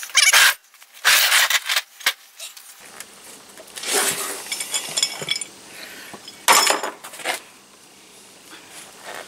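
Metal clinks, scrapes and rattles from handling a riding mower's steel deck as its belt is worked off the pulleys and the deck is moved. They come in several separate bursts, the loudest in the first two seconds, with more about four and six and a half seconds in.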